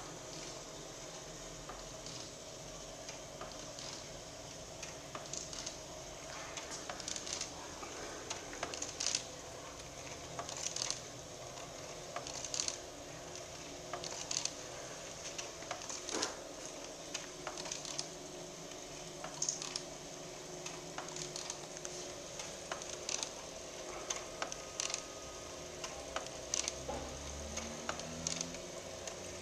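Irregular crackles and clicks over a steady low hum.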